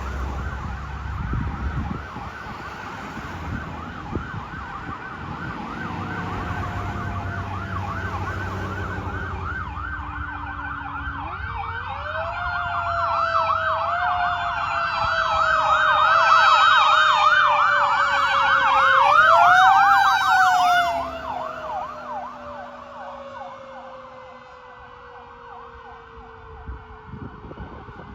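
Fire engine sirens: a fast electronic yelp throughout, joined about twelve seconds in by a mechanical siren that winds up, winds up again more strongly near twenty seconds, then slowly falls in pitch as it coasts down. A low engine rumble sits under the first several seconds.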